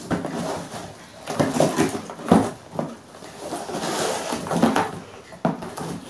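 Cardboard box and plastic wrapping being handled and rustled while a boxed cooking pan is unpacked, with scattered knocks and a longer crinkling stretch about four seconds in.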